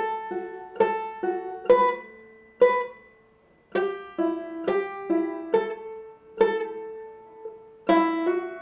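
Five-string banjo played slowly in clawhammer style, with single notes and chords plucked one at a time and left to ring. It is a phrase of a tune's A part, with a short pause about three seconds in.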